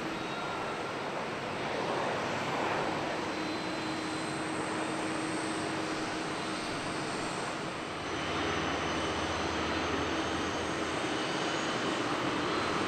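Steady jet airliner noise on an airport apron around an Airbus A330-300 under pushback: a constant whine over a broad rush. The sound shifts slightly about eight seconds in, with a new high tone and more low rumble.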